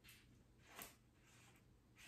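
Near silence, with a few faint, brief rustles and clicks as the cap of a plastic bottle of buffalo sauce is worked open; the clearest comes a little under a second in.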